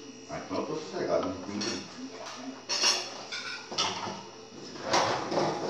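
Dishes and cutlery clinking, a few sharp clinks about a second apart.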